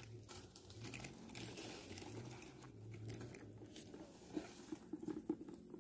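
Faint splashing and crackling from a hooked climbing perch (betok) thrashing at the surface of a shallow ditch as it is reeled in on a spinning rod. A cluster of sharper clicks comes near the end.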